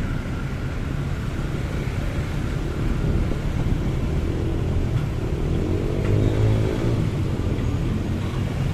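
Steady low rumble of a motorcycle riding through city traffic. About six seconds in, an engine's note rises and falls.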